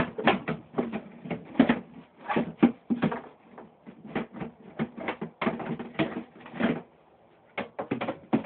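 Rapid, irregular knocking and rattling of a stick prodding around a plastic bin and its grated floor mat, several knocks a second, with a short pause about seven seconds in.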